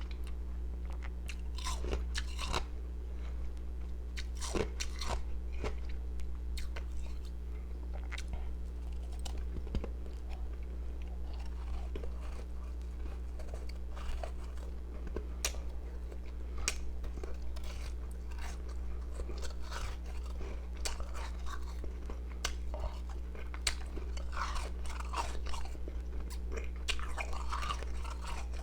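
A person biting and chewing powdery ice pieces close to the microphone: a steady run of sharp, crisp crunches. A constant low electrical hum runs underneath.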